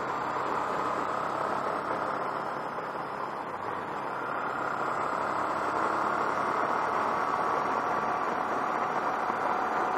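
Honda NT700V motorcycle cruising at road speed: a steady rush of wind over the microphone mixed with engine and road noise. It grows a little louder about four seconds in.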